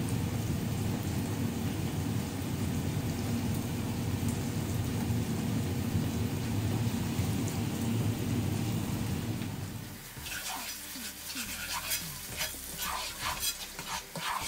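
A steady low rushing noise for about the first ten seconds, then onions and tomatoes crackling and sizzling in a frying pot, with a spatula scraping and stirring them toward the end.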